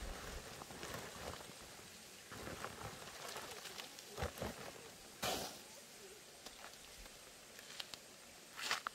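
Woven plastic sack rustling and crinkling as bamboo shoots are tipped out of it and tumble onto a plastic sheet. There are louder bursts about four and five seconds in and again near the end.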